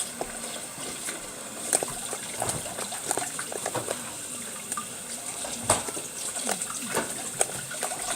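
Water running from a tap while wet shaving-cream slime is worked in the hands, with irregular small squelches and clicks.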